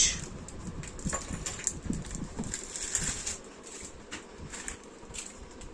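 Faint handling sounds as a cricket bat and its plastic handle end cap are turned over in the hands: a few light scattered clicks and rustles.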